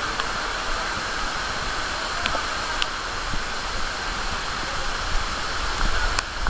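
Steady rush of falling water from a monsoon waterfall, an even hiss with a low rumble beneath it.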